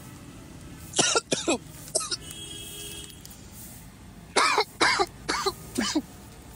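A man coughing in short, loud bursts, in one bout about a second in and a longer bout of four or so near the end, his reaction to the burn of chips he dusted with extra chili powder.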